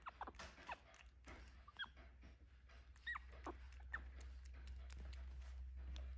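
Capuchin monkeys giving soft, high, squeaky calls: about half a dozen short chirps, each sliding down in pitch, at irregular intervals over a low steady hum.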